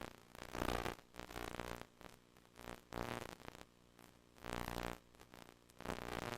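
VHS HiFi audio buzz from a silent, damaged tape: a steady low buzz with uneven surges of crackly static every second or two.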